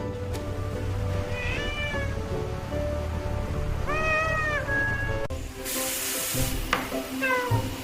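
A cat meowing three times over background music, each meow a short arched call rising and falling in pitch. A brief hissing noise sounds in between, a little over halfway through.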